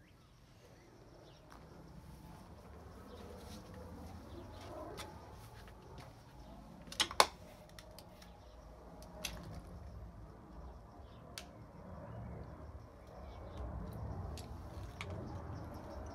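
Footsteps walking over concrete and debris, with a few sharp crunches, the loudest about seven seconds in, and weaker ones about two and four seconds later.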